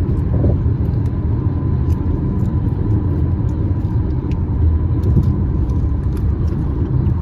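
Steady low road rumble inside the cabin of a moving car, with a faint steady whine and a few light clicks.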